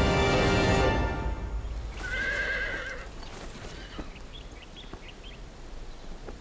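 Music fades out, then a horse whinnies once for about a second, followed by faint scattered clops of hooves shifting in place.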